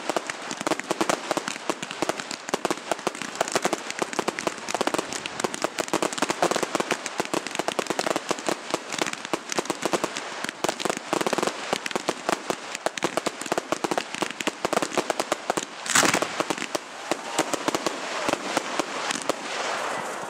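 Fireworks crackling in a dense, rapid string of small pops, with one louder bang about three-quarters of the way through.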